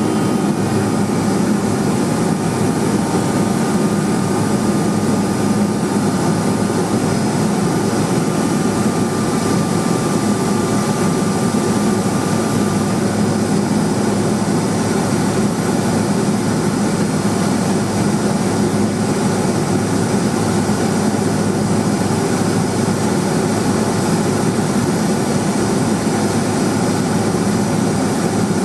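Single Rolls-Royce 250 turboprop engine of a Cessna 210 Silver Eagle running steadily in flight: a constant drone with a faint steady whine.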